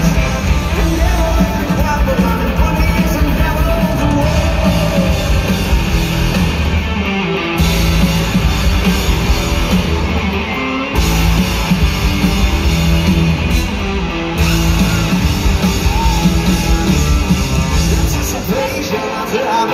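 A live rock band plays loudly in an arena, with electric guitar, drums and a male lead vocal, recorded from the crowd on a phone. The low end drops out for about three seconds about a third of the way in, then the full band comes back.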